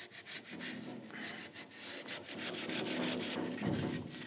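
A burgundy Scotch-Brite pad, about 400 grit, rubbed back and forth by hand along a bare wooden guitar neck in quick scratchy strokes. This is de-whiskering: knocking down the wood fibres raised by wetting the neck, leaving it smooth for finish.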